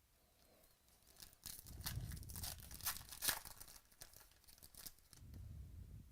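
Trading cards and foil pack wrappers being handled during a box break: a few seconds of scattered rustling and crinkling with small clicks.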